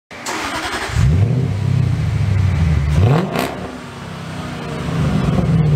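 Car engine revving: it picks up about a second in, blips sharply up about three seconds in, eases off, then builds again near the end.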